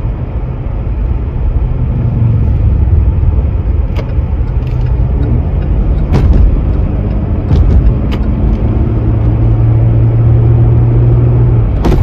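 Road and engine noise inside the cabin of a moving car: a steady low rumble, with a low drone holding one pitch for the last few seconds and a few faint clicks.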